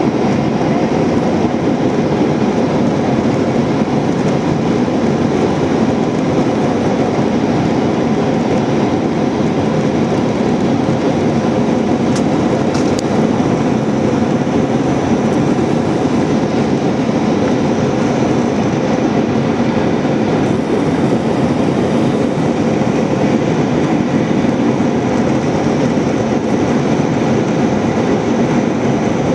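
Steady roar of engine and airflow inside the cabin of an Airbus A320 in its climb after take-off. Two faint clicks come about twelve seconds in.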